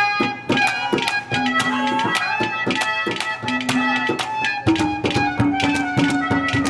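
Live Haryanvi ragni ensemble playing an instrumental passage: quick, steady drum strokes under sustained melody notes, with one long held note coming in about two-thirds of the way through.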